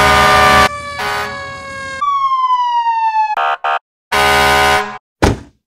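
Fire engine siren: loud blocks of steady tones, then a tone that falls in pitch as the siren winds down about two seconds in, followed by a few more short siren blasts. A brief sharp knock comes near the end.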